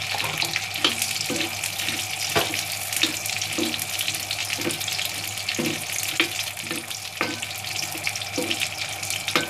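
Makhana (fox nuts) sizzling and crackling steadily as they fry in hot ghee in a pan. A metal spoon stirs them, scraping the pan and knocking against it at irregular moments.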